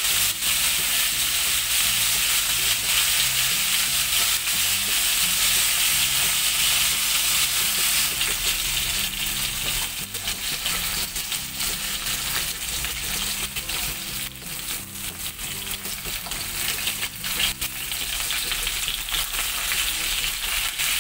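Whole koi fish sizzling as they shallow-fry in hot mustard oil, a steady hiss with frequent crackles and pops. A wooden spatula turns and shifts the fish in the pan now and then.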